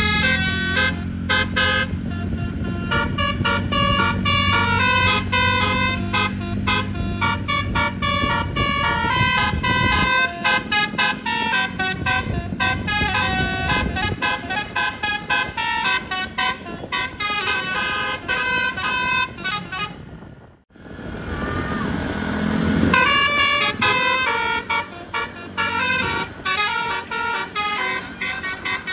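Tour bus telolet horn playing rapid runs of short high notes in melody-like patterns, over a low engine hum that fades after about ten seconds. The notes break off briefly about twenty seconds in, then start again.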